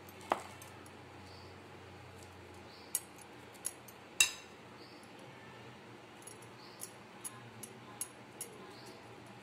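A steel spoon clinking against a bowl while scooping out a filling: a few sharp, briefly ringing clinks, the loudest about four seconds in, then a run of lighter ticks near the end.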